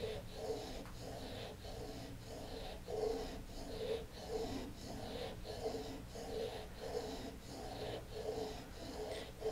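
Back-bent gouge's steel bevel rubbed back and forth on a flat, water-wetted sharpening stone: a rhythmic rasping scrape at about two strokes a second, grinding away metal to flatten the bevel.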